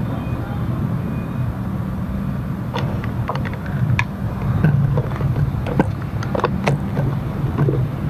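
Motorcycle engine idling with a steady low hum, while sharp clicks and knocks of the action camera being handled and mounted come several times from about three seconds in.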